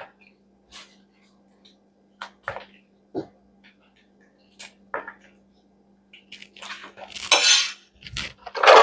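A utensil clinking and scraping against a cooking pot in scattered short knocks, with two longer, louder scrapes near the end, while the finished okra soup is stirred and lifted. A faint steady hum runs underneath.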